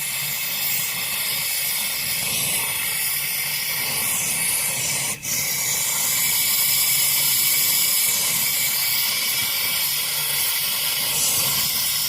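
Small handheld gas torch, fed from a liquefied-gas canister, burning with a steady hiss while brazing a crack in a refrigeration line to stop a refrigerant leak. The hiss briefly drops out about five seconds in.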